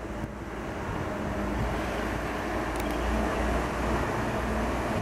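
A bus passing on the road, a noisy rumble that grows louder over the first three seconds and then holds.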